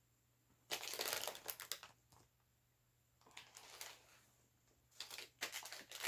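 Packaging crinkling and tearing in three spells as a doll's small accessory packets are opened by hand.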